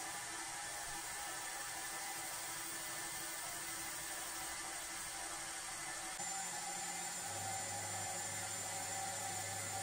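Steady whir of a running machine. About six seconds in the sound changes: a low hum and a thin high whine come in.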